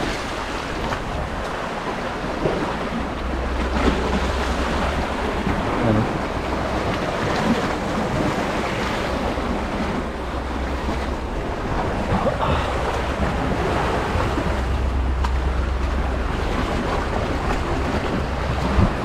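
Wind buffeting the microphone in uneven gusts over a steady wash of sea waves.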